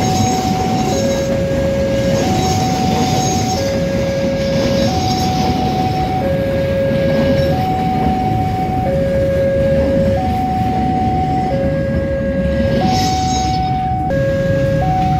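Passenger train coaches rolling past over the crossing, a steady rumble and clatter whose hiss drops away near the end as the last coach clears. Over it, a faint two-tone hi-lo siren switches between a lower and a higher note about every 1.3 seconds.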